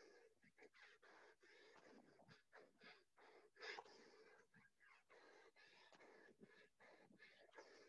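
Faint, hard, rapid breathing and panting from exertion during a set of burpees, with one louder breath about three and a half seconds in.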